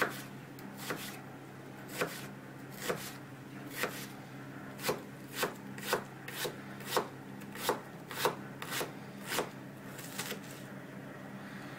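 Kitchen knife chopping a red onion on a wooden cutting board: a series of sharp knocks of the blade on the board, about one a second at first, then quicker, about two a second, stopping about a second before the end.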